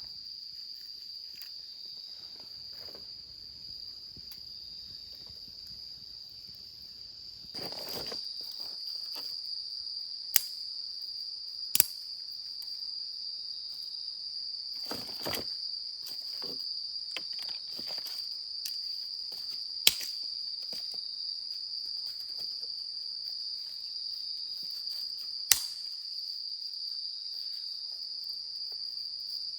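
Insects, crickets by the tags, chirring in one steady high-pitched drone, with a few sharp clicks and some soft rustling nearby.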